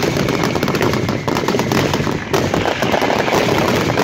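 Fireworks going off as a rapid, dense string of cracks and bangs, many a second, like a firecracker string.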